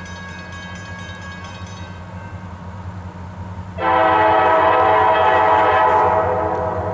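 Diesel freight locomotive's air horn sounding one long chord blast, starting suddenly about four seconds in, over the steady low rumble of the oncoming train.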